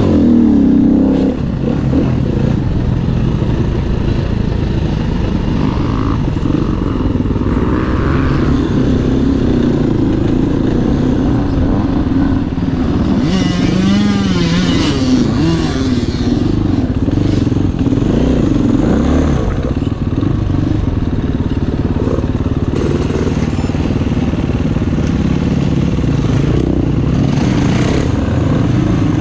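ATV engine running hard on a dirt track, heard from a camera mounted on the quad, its pitch rising and falling as the rider revs and eases off. A brief burst of hiss comes about halfway through.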